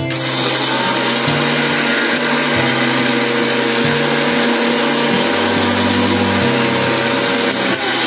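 Prestige mixer grinder switched on and running at speed, its steel jar grinding dry biscuits into powder. The motor comes in suddenly at the start and runs steadily.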